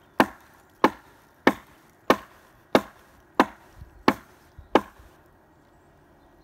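Hatchet chopping into a fallen tree trunk: eight sharp strikes at an even pace of about one and a half a second, stopping about five seconds in.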